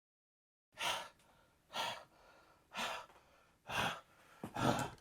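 A voice making short, strained exhaled breaths, about one a second, like someone pushing hard on the toilet.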